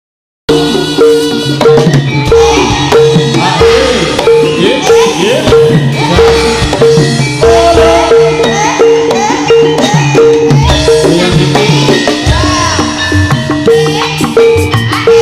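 Loud live jaranan horse-dance music: drums and a steadily repeating pitched percussion note under a bending melodic line. It starts abruptly about half a second in, after a moment of silence.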